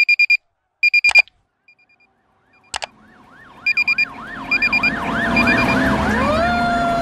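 Short bursts of high electronic beeping with two sharp clicks. Then, from about three seconds in, an emergency siren fades up in a fast yelp, about four swoops a second. Near the end it switches to a long wail that rises, holds and slowly falls.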